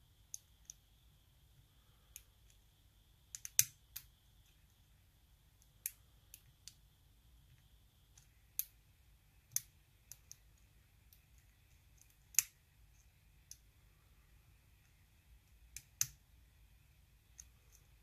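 Hook pick and tension tool working the pins of a Sparrows Revolver practice lock: small metal clicks and ticks at irregular intervals. The sharpest come a few seconds in and about two-thirds of the way through.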